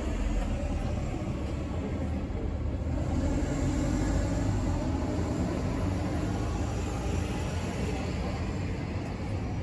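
Steady low rumble of road traffic, swelling slightly a few seconds in.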